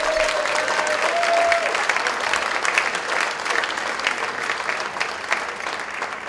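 Audience applauding, a dense steady patter of many hands clapping that slowly fades. For the first second and a half a held, wavering tone sounds over it.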